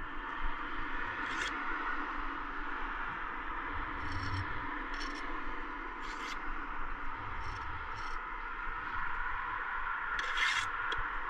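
Steel bricklaying trowel scraping mortar on a brick course in short, irregular strokes, with a longer, louder scrape near the end, over a steady background hiss.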